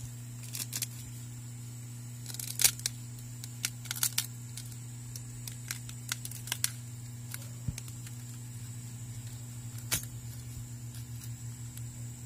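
Scattered small sharp clicks and crackles as a pry tool works the cracked display of a Samsung Galaxy A10 off its frame, the heat-softened adhesive coming unstuck; the loudest click comes about two and a half seconds in. A steady electrical hum runs underneath.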